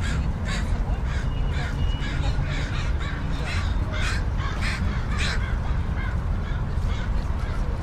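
Crows cawing many times in quick succession, the calls thinning out after about five seconds, over a steady low rumble of beach ambience.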